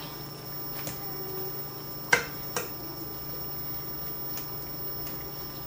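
Metal kitchen tongs clicking against a pot a couple of times while turning chicken pieces in adobo sauce, over a steady low hum.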